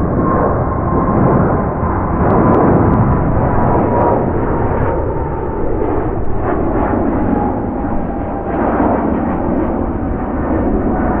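Air India Boeing 777-300ER's GE90-115B turbofans: a loud, steady jet rumble with an engine whine that slowly falls in pitch as the airliner passes.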